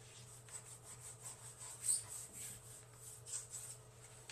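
Faint rubbing and scuffing of a white wipe dragged by hand along the corner of a plastic bathtub, with one louder scuff about two seconds in, over a steady low hum.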